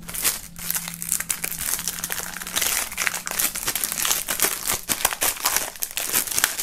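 Clear plastic shrink-wrap film crinkling as it is peeled and pulled off a CD jewel case, with many quick, irregular crackles.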